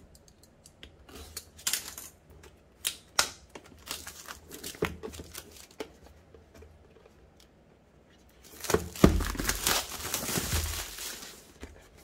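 Plastic wrapping and cardboard of a product box being handled during unboxing: scattered clicks and crinkles, then after a short pause about three seconds of continuous tearing as the wrap is torn open.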